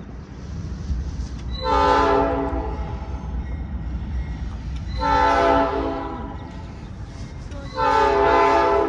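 Leslie K5LA five-chime locomotive air horn sounding three blasts of about a second each, a few seconds apart, over a steady low rumble.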